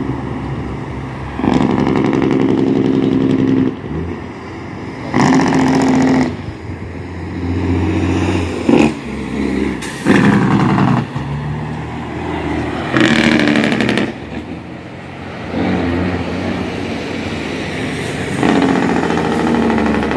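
Highway traffic passing close by: engines of trucks and cars going past one after another, including a semi tractor hauling a shipping container, with several loud stretches of a second or two as the vehicles pass.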